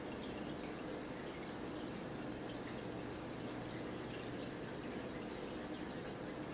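Quiet room tone: a steady, even hiss with a faint low hum and no distinct sounds.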